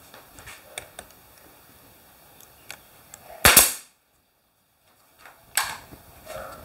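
Pneumatic nail gun firing twice, about two seconds apart, each shot a sharp loud bang, nailing a glued trim strip onto the edge of a plywood shelf. Faint clicks of handling come before the shots.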